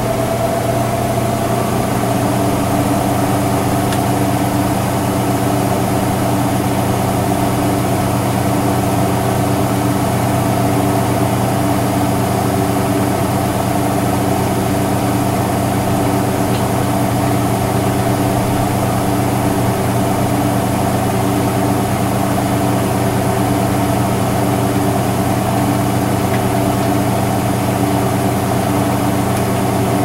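Electrolux LFE10 front-load washing machine running with a steady, even hum during its rinse stages.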